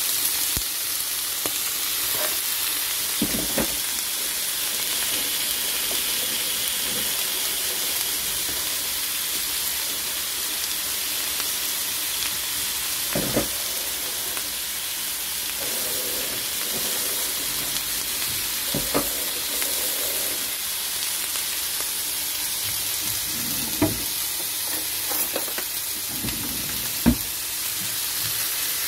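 Chicken breasts sizzling in a hot grill pan: a steady frying hiss, with a few short knocks scattered through.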